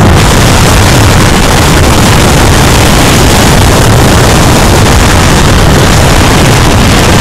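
Motorcycle engine and road noise on a bike-mounted camera microphone: a loud, steady, distorted rush with a low rumble underneath.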